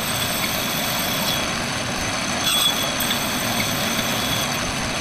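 A machine tool running steadily in a workshop: an even, dense mechanical noise with faint high-pitched tones held throughout.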